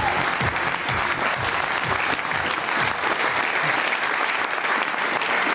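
Studio audience applauding, a dense steady clapping. It is mixed at first with a music cue whose bass line fades out about three and a half seconds in.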